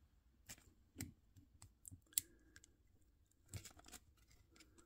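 Faint, scattered plastic clicks and taps from fingers working the wing joints of a plastic Can-Cell action figure, the sharpest click about two seconds in.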